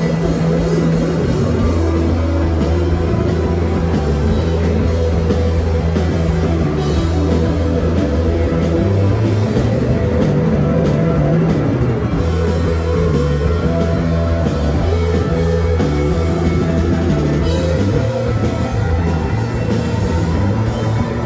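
Live psychedelic rock band playing loud through stage amplifiers: distorted electric guitars and bass over a drum kit, with a heavy, steady low end.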